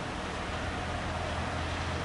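Steady hiss of rain in a thunderstorm, with a low rumble swelling in about half a second in.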